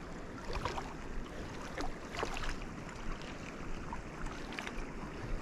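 Rushing stream water, with wind buffeting the microphone as a low rumble.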